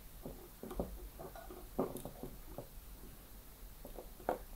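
Faint handling sounds: a scatter of small clicks and rustles as a SATA cable and its plastic plug are worked into the connector on a mini PC's motherboard.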